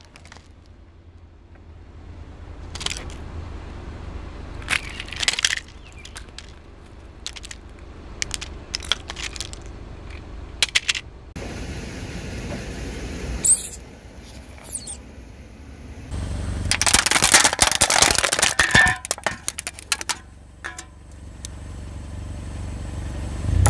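A car tyre slowly rolling over and crushing toys on asphalt: scattered sharp cracks and crackles over the low rumble of the car, with a dense stretch of loud crackling crunches about two thirds of the way in.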